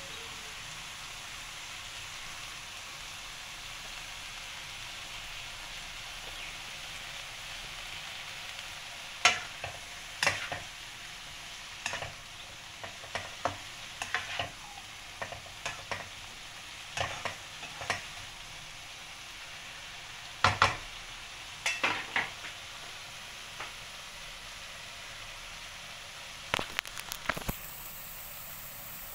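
Bean sprouts sizzling steadily as they stir-fry in a hot nonstick wok. From about nine seconds in, the spatula knocks and scrapes against the pan in irregular strokes.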